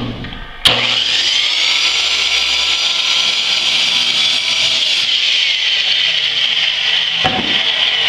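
Electric miter saw starting up suddenly about half a second in and running steadily with a high-pitched whine as its blade cuts through plywood. A single knock comes about seven seconds in.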